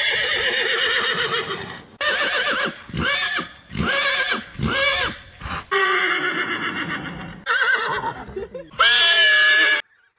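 Horse whinnying again and again, about seven quavering calls in a row, some long and some short, cut off abruptly near the end.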